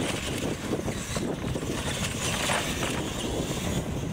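Radio-controlled monster trucks racing across concrete and over ramps, their motors and tyres running, with wind buffeting the microphone.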